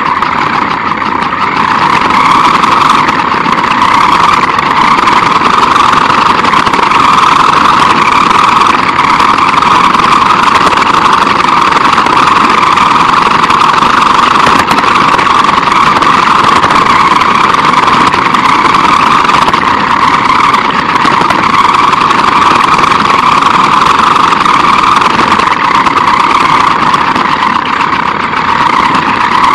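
Radio-controlled car's motor running steadily as the car drives on asphalt, heard from a camera mounted on the car: a loud, steady whine over rough road noise from the small tyres.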